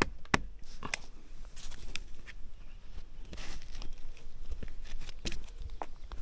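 Hands and clothing gripping and scraping against red maple bark while climbing the trunk: irregular rubs, scrapes and sharp taps.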